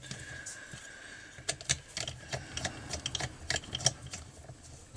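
Irregular light metallic clicks and ticks of a hand driver working the two screws that hold the muffler onto an Echo 2655 string trimmer, with tool and fingers knocking against the metal parts.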